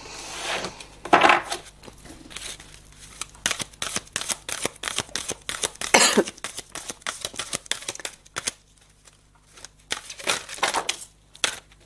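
Oracle cards being shuffled and handled: a run of quick papery flicks and taps, with louder swishes about a second in and again near the middle.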